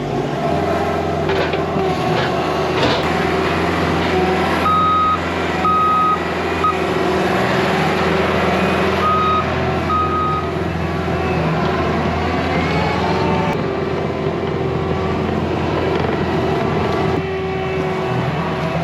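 Skid steer loader's diesel engine running under work, with its backup alarm beeping about five times in two short spells as it reverses.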